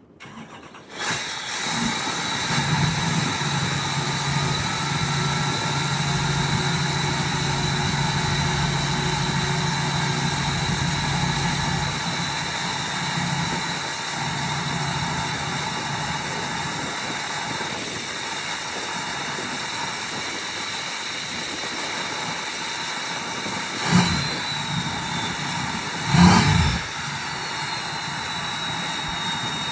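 Duramax 6.6-litre V8 turbodiesel with a 5-inch exhaust cold-starting about a second in, then idling steadily with a thin, high turbo whistle over it. Near the end the engine is revved briefly twice, the whistle shifting in pitch after each rev.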